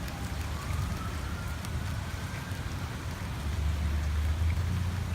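Steady rain during a thunderstorm, with a low rumble that grows louder after about three seconds. A faint rising tone runs from about a second in.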